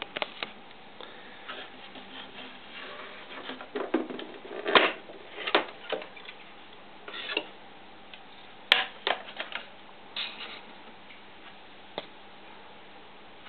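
Handling noise from the scale body of a model helicopter: irregular clicks, taps and rustles of the plastic fuselage as the side of the body is opened, busiest in the middle with a sharp click about nine seconds in.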